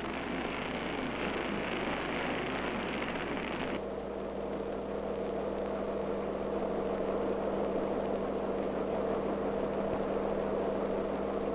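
A steady rushing noise gives way abruptly, about four seconds in, to a Fairchild Hiller FH-1100 helicopter running on the ground. Its turbine engine and turning rotor make a steady hum with two held tones.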